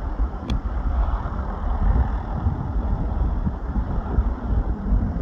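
Jet airliner's engines at take-off thrust: a steady low rumble as the aircraft climbs away.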